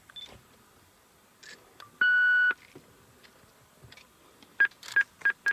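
Electronic beeping: one half-second beep about two seconds in, then four short beeps in quick succession near the end.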